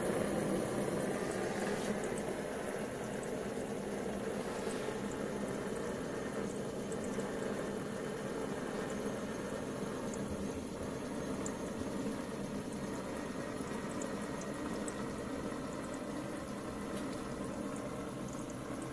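Water-cooled Stirling engine running steadily at speed on its propane burner, turning its small DC generator: an even hiss and whir with a faint steady hum.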